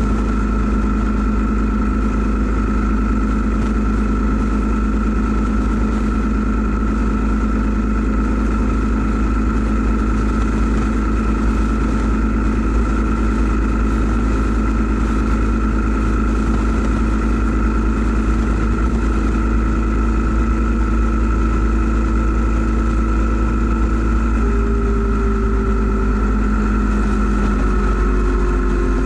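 Yamaha 950 V-twin motorcycle engine running steadily at cruising speed, with constant wind rush on the microphone. The engine note sags slightly near the end.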